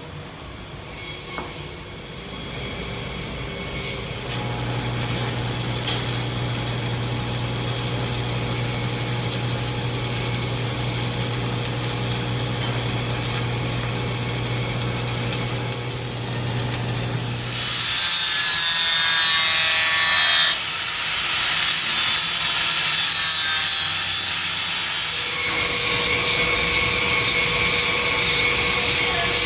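Power tools running in a workshop. A motor hums steadily for several seconds, then a much louder, hissy power tool working material starts about two-thirds of the way in, stops for a moment and starts again.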